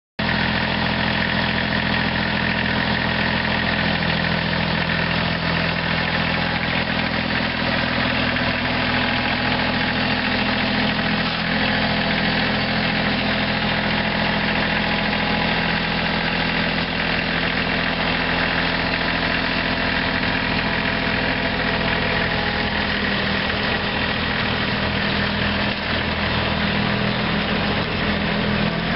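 Bobcat CT230 compact tractor's Kubota three-cylinder diesel engine idling steadily.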